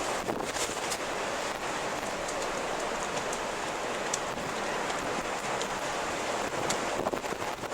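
Steady rushing storm wind with a few faint sharp clicks scattered through it.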